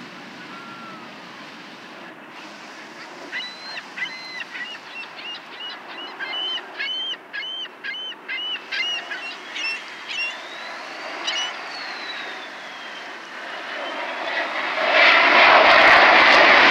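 Jet aircraft engine noise that builds from about two-thirds of the way through and is loudest near the end as the jet comes overhead. Earlier, a bird gives a quick series of short, repeated calls.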